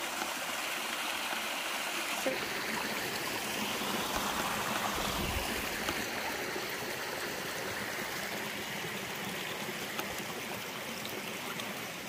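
Small waterfall and creek water running steadily over rock ledges, a continuous rushing and trickling.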